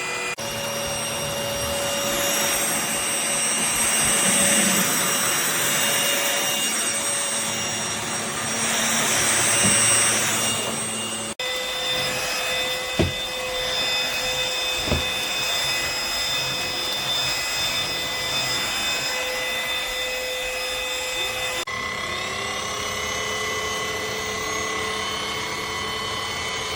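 Cordless stick vacuum running: a steady motor whine over a rush of air, changing abruptly twice. Two sharp clicks come near the middle, and near the end the motor pitch rises and settles as it spins up.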